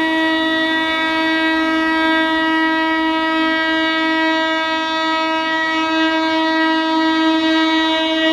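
Indian Railways locomotive horn on an approaching express train, held in one long, steady blast.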